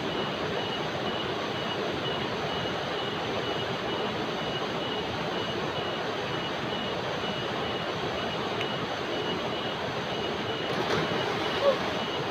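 River rapids rushing steadily over rocks, with a cicada calling above the water in a high, evenly pulsed note. A single short, sharp sound near the end.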